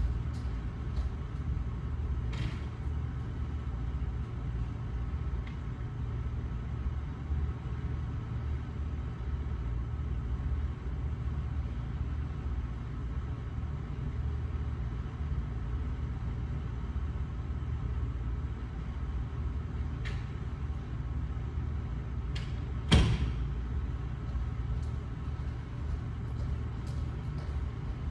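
Steady low rumble of room noise with a few sharp knocks and taps, the loudest a single thump about 23 seconds in.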